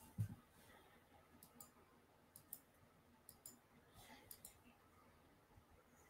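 Faint computer mouse clicks, several short pairs of clicks spread through, with a low thump just after the start.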